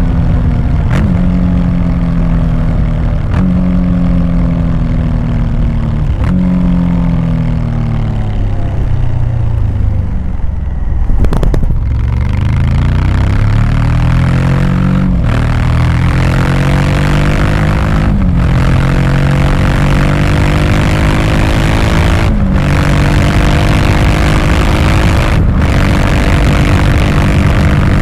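Honda Africa Twin Adventure Sports' 1084 cc parallel-twin engine on the road, heard from the rider's seat. For about the first ten seconds it slows down, its pitch falling with several downshifts that each bring a short jump in pitch. It then accelerates hard, the pitch climbing through four upshifts with a brief break at each gear change, while wind noise grows with speed.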